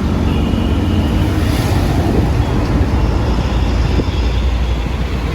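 Train running: a steady, loud low rumble with a haze of rattling noise.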